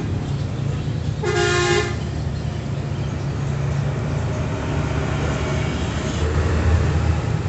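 A vehicle horn toots once, briefly, about a second in, over a steady low rumble of passing traffic that swells near the end.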